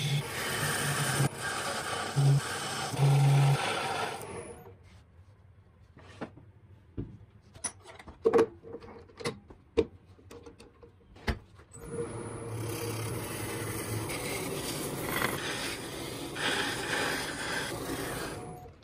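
A gouge cutting a spinning wood blank on a wood lathe, a steady rough shaving hiss; after about four seconds the cutting stops and a stretch of scattered taps and knocks follows as the piece is handled, then steady cutting resumes about twelve seconds in.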